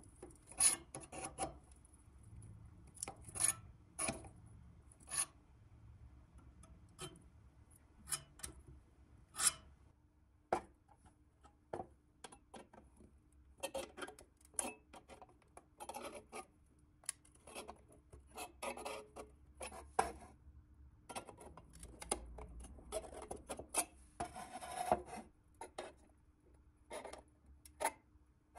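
A pressed-steel toy truck body part being handled on a wooden workbench: irregular short scrapes and light clicks as the metal rubs and taps against the wood.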